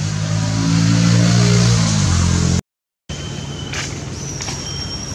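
A motor vehicle engine running close by, loud and rising slightly in pitch, cut off abruptly about two and a half seconds in. After a brief silence, a steady high-pitched whine continues over a light outdoor hiss.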